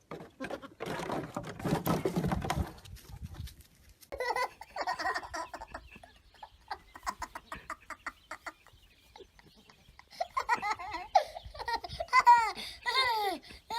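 Rustling and knocking in the first few seconds, then someone laughing in short repeated bursts toward the end.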